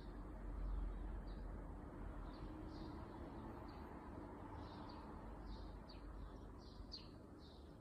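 Small bird chirping: short, high, repeated chirps, scattered at first and coming faster and louder in the second half, over a low rumble.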